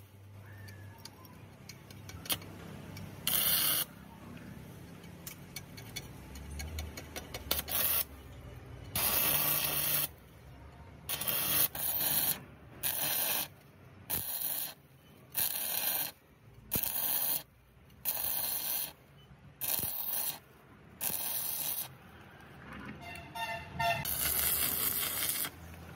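Stick-welding arc crackling in repeated bursts of about a second each, a few scattered at first and then a regular run roughly every second and a half from about nine seconds in, as a reinforcing plate is welded onto a steel track idler wheel.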